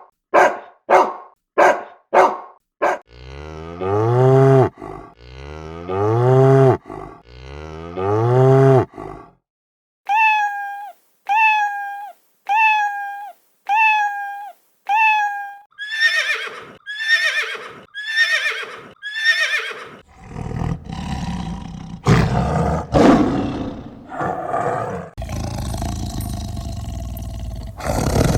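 A string of different animal calls one after another: a dog barking quickly, three long low calls, six short high calls, five more calls, then a long low roar like a big cat's in the last third.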